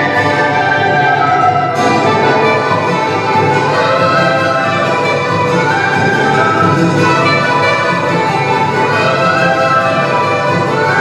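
Andean festival band music for the Qoyacha dance, with brass playing the melody over a steady beat.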